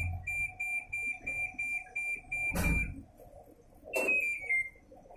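Videocon Digi Zaara Plus washing machine's control-panel buzzer beeping rapidly, about four high beeps a second. The beeping stops with a knock about two and a half seconds in; near four seconds a second knock comes with a short falling run of beeps.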